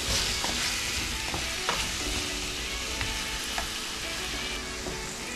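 Diced potatoes, onion and herbs sizzling in oil in a metal stockpot while a wooden spoon stirs them, with a few scrapes and knocks of the spoon against the pot.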